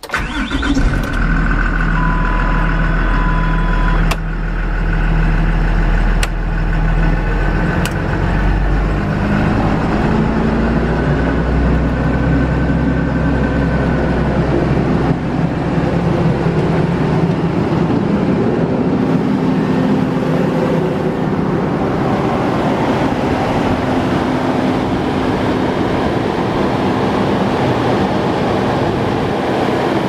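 A 2011 Blue Bird Vision school bus's diesel engine fires up suddenly and settles into a steady idle. A few sharp clicks sound in the first several seconds.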